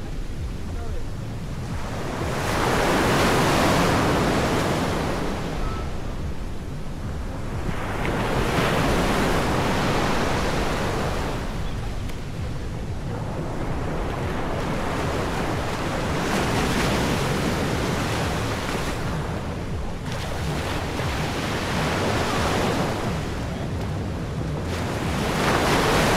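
Surf breaking on a beach, the wash swelling and fading every few seconds, about five times, with wind rumbling on the microphone underneath.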